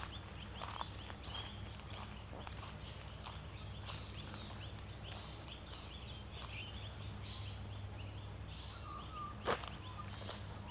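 Many small birds chirping rapidly and continuously, over a steady low background hum. There are a few faint taps and a single sharp click near the end.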